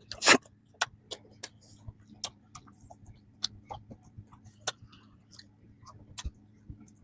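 Close-miked mouth sounds of a person chewing bread: irregular wet clicks and smacks, with one louder mouth sound about a quarter of a second in.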